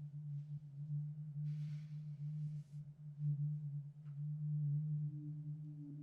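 Sustained low synthesized drone from a film score: two steady low tones held throughout, with a brief soft hiss about one and a half seconds in.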